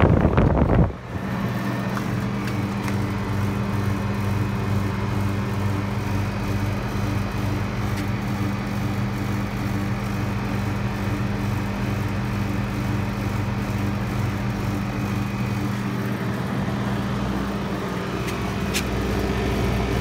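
Carrier outdoor air-conditioner condenser unit running: a steady electrical hum from its compressor and fan motor. For about the first second the fan's airflow rushes loudly over the microphone, then drops away.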